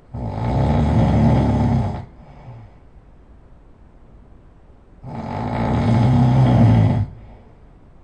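A person snoring loudly: two long, rattling snores, each about two seconds long and swelling as it goes, the second starting about five seconds in, each trailing off into a faint tail.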